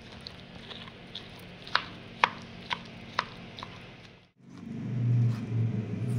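Kitchen knife chopping soft roasted brinjal on a plastic cutting board: a series of sharp taps of the blade against the board, the loudest about five in two seconds. After a brief break near the end, a louder steady low hum sets in.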